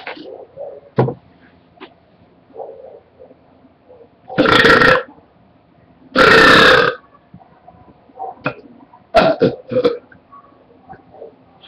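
A man burping: two long, very loud belches a little over a second apart, around the middle, with a few short, quieter sounds near the end.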